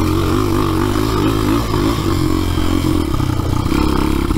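Honda XR200 dirt bike's single-cylinder four-stroke engine running hard on a trail, its pitch rising and falling as the throttle is worked.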